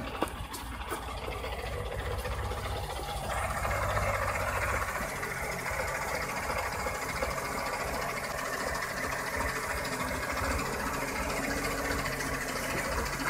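Engine of a log-laden GAZ-66 cab-over truck running steadily at low speed as it crawls through mud. The sound changes about three seconds in, at a cut from another shot.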